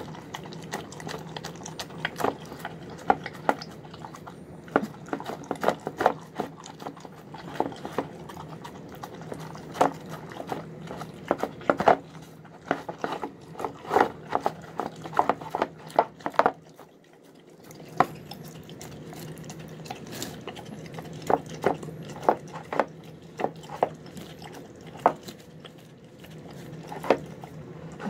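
Dog eating wet, sloppy food from a plastic bowl: rapid, irregular wet smacking, lapping and chewing, with its muzzle knocking and scraping against the bowl. The eating pauses briefly a little past the middle, then starts again.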